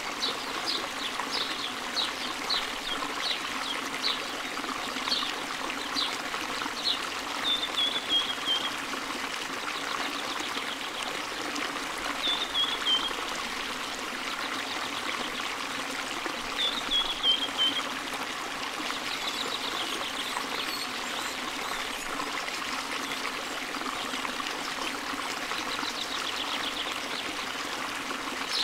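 A wok of saucy chicken, vegetables and spaghetti sizzling and bubbling over a high flame while the noodles are tossed through it with a spatula: a steady frying hiss with faint crackles, and a few short, high, falling chirps now and then.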